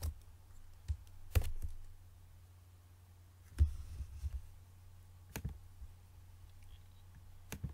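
A handful of sharp, irregularly spaced computer mouse and keyboard clicks over a low steady hum. The loudest clicks come about a second and a half in and about three and a half seconds in.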